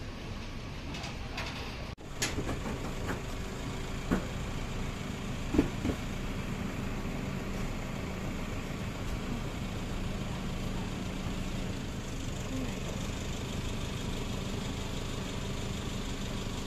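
Busy market ambience: a steady low mechanical hum over general background noise, with a few short clinks and knocks in the first half.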